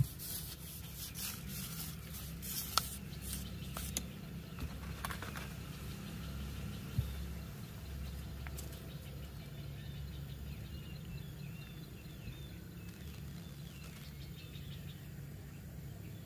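Outdoor riverside ambience: a few sharp clicks in the first few seconds, then faint bird chirps in the second half, over a steady low rumble.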